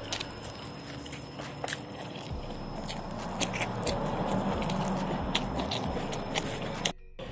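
Close-up chewing of a mouthful of rice eaten by hand, with wet smacking and scattered small clicks, fuller in the middle of the stretch.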